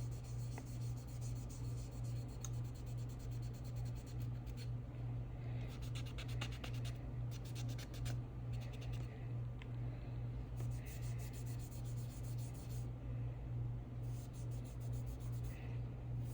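Scratchy rubbing and scraping as excess enamel colour-fill paint is worked off a pistol slide with solvent, coming in uneven strokes. Under it runs a steady, evenly pulsing low hum, which is the loudest sound.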